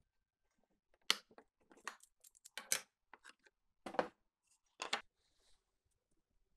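Short knocks and clicks of hand work at a stopped table saw: a clamp on the sled jig being released and a hardwood workpiece lifted off and set down on the saw table. Several sharp knocks spread over about four seconds, the loudest about one, three, four and five seconds in.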